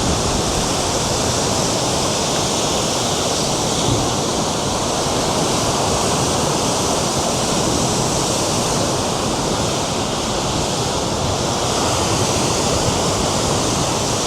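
Big waves breaking on the shore in a strong wind: a loud, steady rush of surf, with wind blowing across the microphone.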